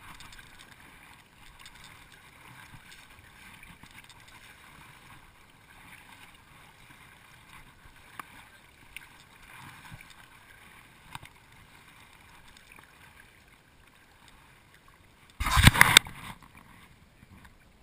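Double-bladed paddle stroking through choppy lake water beside a plastic fishing kayak, a quiet wash of water with faint knocks. A loud burst of noise on the microphone a little over three-quarters of the way through.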